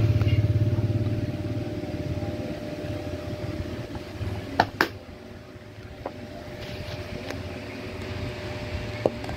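Sharp clicks of a hard plastic pencil box being handled and its lid snapped shut, two close together about halfway through and a lighter one near the end. Under them runs a steady low mechanical hum, loudest at the start, that fades over the first two seconds.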